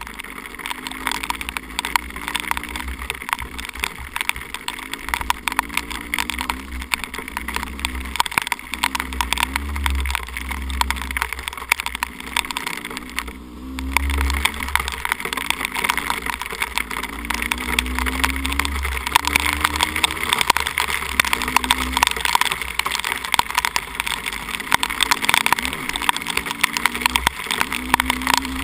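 Two-stroke 300 cc dirt bike engine revving up and down as the bike is ridden, with heavy wind rush and crackle on the helmet camera's microphone. The engine briefly falls off about thirteen seconds in, then pulls again.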